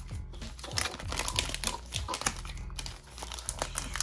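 Crinkling of a plastic trading-card pack wrapper and the cards being handled, an irregular, crackly rustle.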